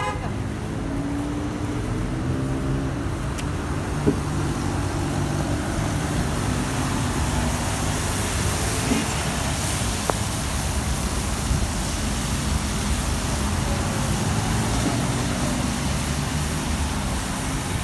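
Road traffic on a wet street: a nearby engine running steadily under the passing cars and vans, with tyres hissing on the wet pavement, more strongly about halfway through.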